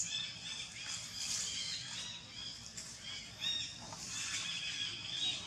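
Short high chirping animal calls repeating again and again, with dry leaves rustling under scampering feet.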